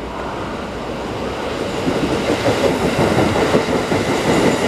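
Keikyu 2100-series electric train running into the station platform, its wheels clattering over the rails and growing louder as the cars come alongside about two seconds in.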